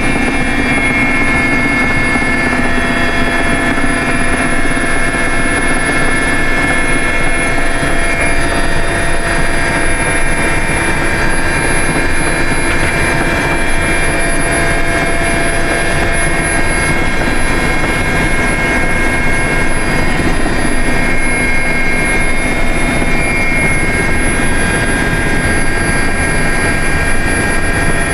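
Mi-8 helicopter's twin turboshaft engines and rotor, heard from inside the cockpit in flight: a loud, steady drone with several high, steady whining tones over it.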